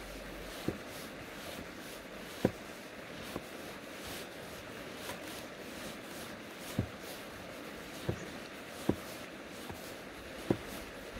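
Steady hiss of a flowing river, broken by about seven short, sharp knocks spread through.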